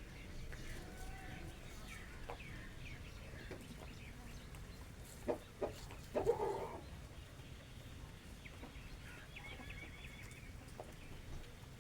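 Chickens clucking, scattered soft calls with two short sharp clucks a little after five seconds and a louder, longer cluck just after six seconds; high chirps follow near the end.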